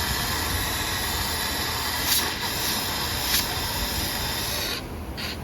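Steady hissing noise, with two short louder spurts about two and three and a half seconds in. The hiss thins out near the end.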